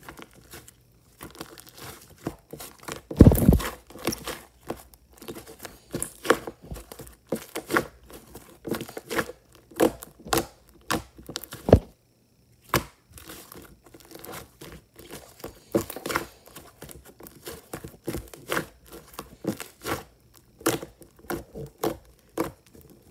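Thick clay slime being stretched, squeezed and poked by hand: an irregular run of sticky clicks and pops, the loudest about three seconds in, with a brief lull around twelve seconds.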